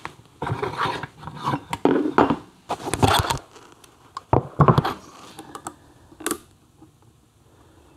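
Aluminium motorcycle crankcase and hand tools being handled on a workbench: a run of irregular scrapes, rubs and metal knocks, then one sharp click a little after six seconds.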